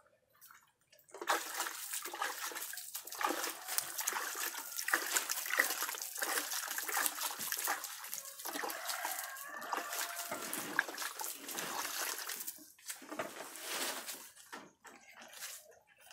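Water mixed with EM4 and molasses splashed from a plastic bucket onto a heap of goat droppings and rice bran: a continuous spattering on the granular pile that starts about a second in and breaks into a few shorter splashes near the end. The liquid is the fermentation solution being worked into the compost heap.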